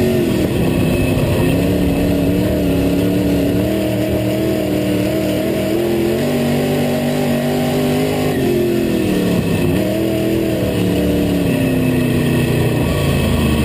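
Dirt-track race car's engine heard from inside the cockpit, running on steady throttle; its pitch dips and climbs back twice past the middle as the driver eases off and gets back on the gas.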